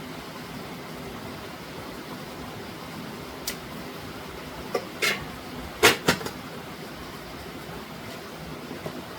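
A few sharp knocks past the middle, the loudest two in quick succession, over a steady background hiss.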